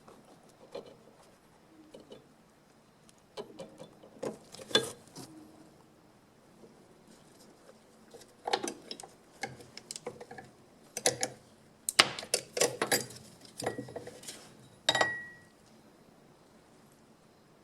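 Irregular clicks, taps and metallic clinks of small hard objects being handled, coming in scattered clusters, with a short ringing note about three-quarters of the way through.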